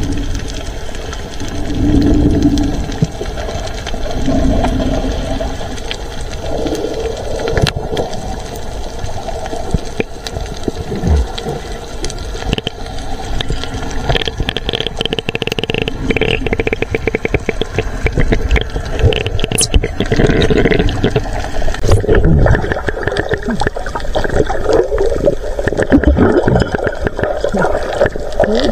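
Muffled underwater noise around a submerged camera: water moving and bubbling, with low muffled tones and scattered small clicks and crackles.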